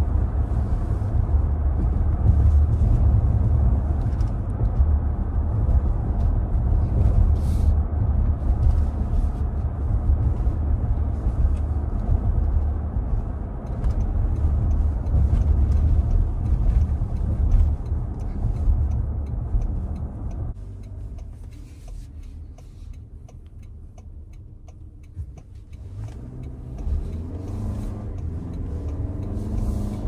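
Cabin road noise of a Toyota Grand Highlander on the move: a steady low rumble that drops off suddenly about two-thirds of the way through, then builds again near the end with a rising note as the SUV picks up speed.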